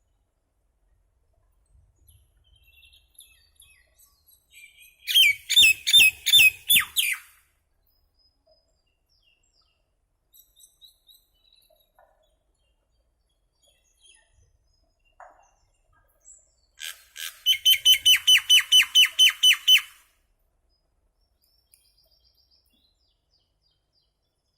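Common myna calling: faint chirps, then about five seconds in a loud run of about six repeated, ringing notes. Scattered quiet chirps follow, and later comes a fast series of about fourteen repeated notes, roughly five a second.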